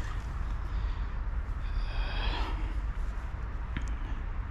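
Steady low rumble, with a short nasal snort of breath about two seconds in and a faint click near the end.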